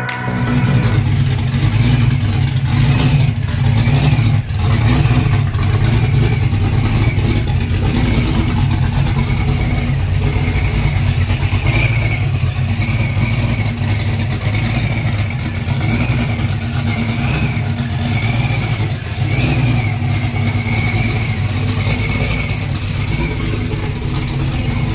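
Chevrolet Corvette C7 V8 engine running steadily.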